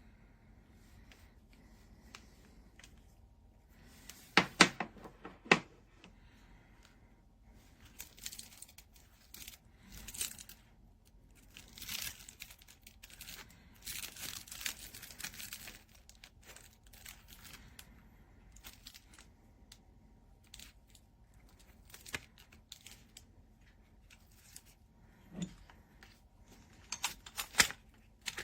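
Handling noise from a folding bike lock set: a few sharp clicks and knocks of the metal lock parts, loudest about five seconds in and again near the end, with stretches of rustling or tearing-like noise in the middle, typical of a case, strap or packaging being worked.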